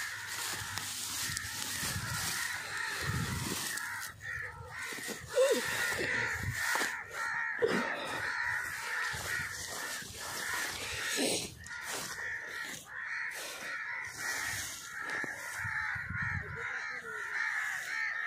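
Crows cawing repeatedly over a steady chorus of other bird calls, with rustling and footsteps as someone walks through a wheat field.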